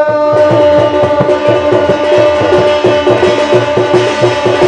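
Jagar drumming: a fast, even run of strokes on the small drum held in the singer's lap, between sung lines. A steady held tone rings above the drumming.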